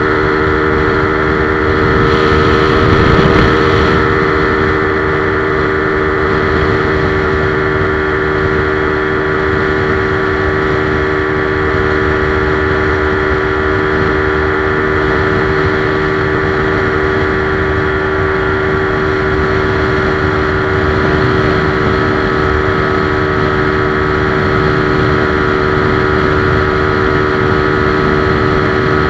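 Modified Yamaha LC135 underbone motorcycle engine held at full throttle, running at a steady high speed with a constant pitch, slightly louder a couple of seconds in, and wind rushing past.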